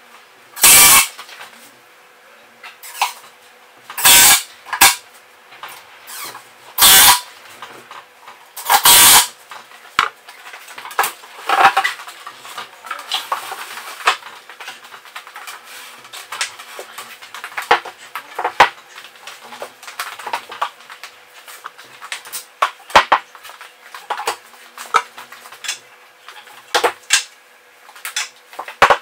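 Knocking and clattering of timber and MDF shelving being handled and fixed together: a dense run of small clicks and knocks with four short, loud bursts in the first nine seconds.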